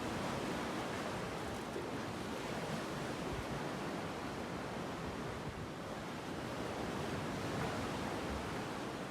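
Steady rushing outdoor noise of wind and sea water, swelling slightly and falling back, with no distinct events.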